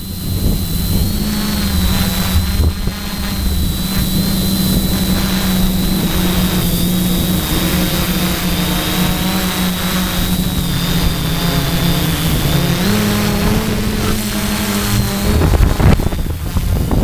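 DJI F450-clone quadcopter's motors and propellers running steadily in flight, heard up close from the camera mounted on the drone, with a thin high motor whine over the hum and wind rumble on the microphone. The hum sags slowly, then steps up in pitch about 13 seconds in as the throttle changes.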